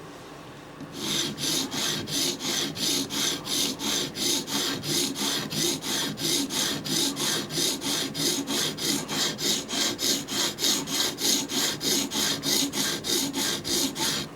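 Knife blade, a Microtech Combat Troodon tanto, being stroked back and forth across a sharpening stone with light pressure, about three even rasping strokes a second. The strokes start about a second in and stop abruptly just before the end.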